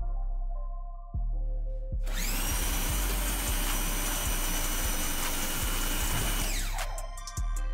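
CAT 1800 PSI electric pressure washer starting up as the trigger is pulled: a rising whine, then a steady high whine and loud spray hiss as it holds about 1180 PSI through a 25° nozzle. It winds down with a falling whine near the end. Background music at the start and the end.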